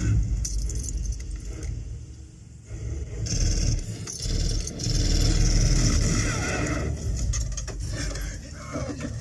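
Action-film soundtrack played loud over home-theatre speakers and a subwoofer: deep low rumble with vehicle noise and metallic clatter. It dips briefly about two seconds in, then swells again.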